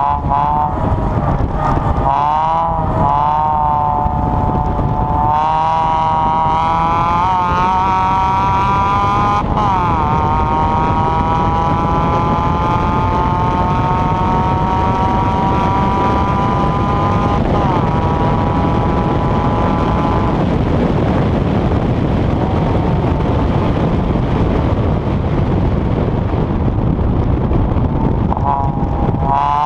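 A 1.5-litre hatchback's engine heard on board at speed, its note climbing steadily in pitch with a few short drops, over heavy wind and road noise. About two-thirds of the way in, the engine note sinks under the wind and tyre noise. It comes back strongly near the end.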